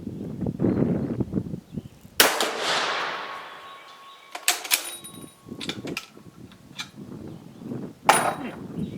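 A Dutch Beaumont rifle fires one shot about two seconds in, and the report echoes away over the next couple of seconds. Sharp metallic clicks follow about four and a half seconds in, with another metallic clack near the end.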